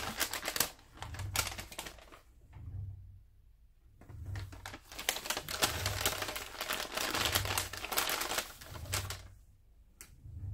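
A package being unwrapped by hand: rapid crackling and rustling of its wrapping, in two spells with a short pause between.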